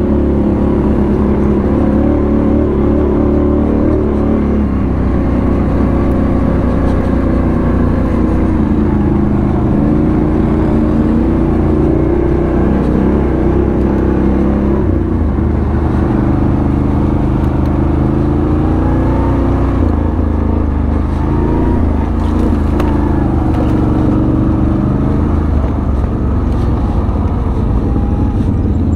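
ATV engine running steadily under way, its pitch rising and falling gently with the throttle.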